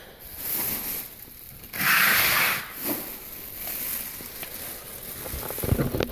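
Rustling and rubbing noise on the phone's microphone as it is moved and lowered toward the floor, with a loud burst of hiss about two seconds in and a few soft knocks near the end.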